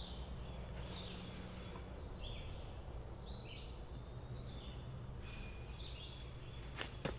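Quiet outdoor ambience: birds chirping now and then in short high calls over a low steady background rumble, with a single sharp click near the end.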